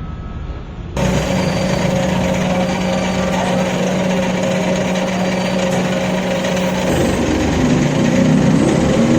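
Machine tool cutting a valve pocket in metal: a steady motor tone under a harsh, noisy cutting grind, which starts abruptly about a second in and shifts in pitch about seven seconds in.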